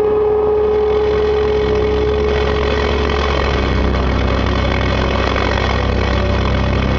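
JCB 8080 ZTS midi excavator's diesel engine running steadily as it works, heard from inside the cab. A steady high whine sits over the engine and fades out about three seconds in.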